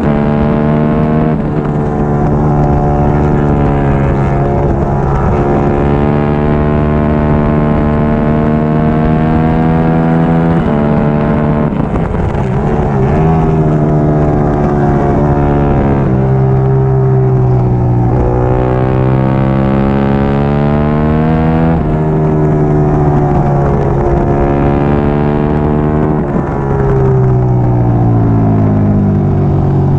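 Triumph Daytona 675R's inline three-cylinder engine running hard at high revs. The pitch holds steady for stretches and then steps up and down several times with gear changes, gliding down near the end as the bike slows.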